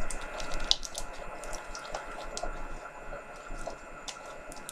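Slime being mixed together by hand, giving irregular small clicks and squelches.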